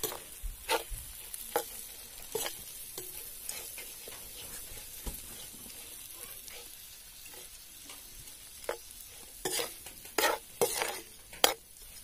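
Banana skipper caterpillars sizzling as they fry in a wok-style pan, with a metal ladle scraping and clinking against the pan as they are stirred. The scrapes are irregular and come thicker and louder near the end.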